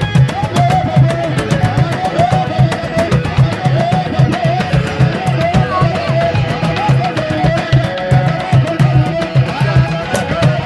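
Live band music: an electric guitar playing quick, winding lead lines over a pulsing bass and a fast, steady percussion beat.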